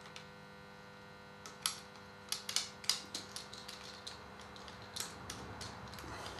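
Plastic GoPro handlebar mount being clipped and clamped onto a rifle scope tube: a run of light clicks and taps starting about a second and a half in, over a faint steady hum.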